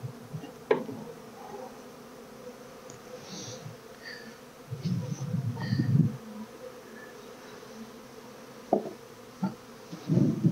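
Honeybees buzzing steadily around an open hive, with a few sharp knocks and some rough handling noise as wooden hive frames are worked and lifted out.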